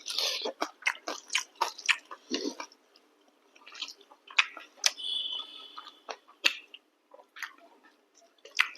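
Close-up eating sounds: chewing and mouth smacks in quick irregular bursts, with quieter pauses between mouthfuls, as chapati and chicken curry are eaten.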